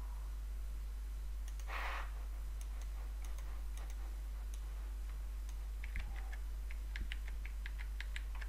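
Light clicking at a computer: a few scattered clicks, then a quick run of about five a second over the last two and a half seconds. A short soft rustle comes about two seconds in, and a steady low electrical hum runs underneath.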